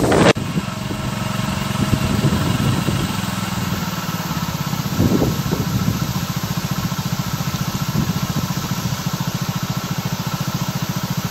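An engine idling steadily with a fast, even pulse, with wind gusting through the bamboo briefly about five seconds in.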